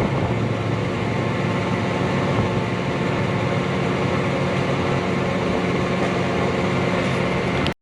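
Vehicle engine running steadily with road noise, a continuous low hum that cuts off abruptly near the end.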